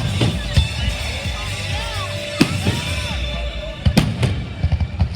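Fireworks bursting: several sharp cracks and booms, a cluster of them about four seconds in, over music playing with a steady bass.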